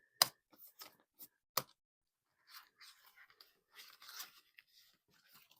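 Paper banknotes and plastic cash envelopes being handled and put away: two sharp clicks, then a few seconds of dry rustling and crinkling.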